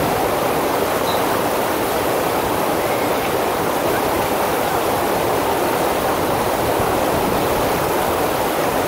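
Steady rush of water from a FlowRider sheet-wave surf machine, its pumped water flowing in a thin sheet up the curved slope with no rider on it.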